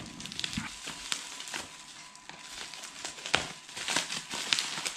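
Plastic bubble-wrap packaging crinkling and crackling as hands pull it apart and cut it with scissors: irregular sharp crackles, with a few louder snaps about a second in and again past the three-second mark.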